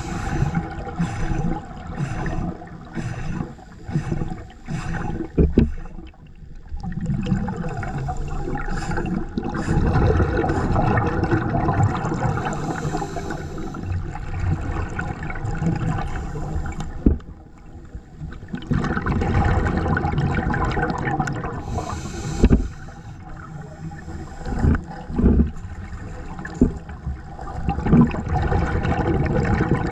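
Underwater scuba sound: air bubbles rushing and gurgling in surges of a few seconds, with quieter gaps between them and a few sharp knocks.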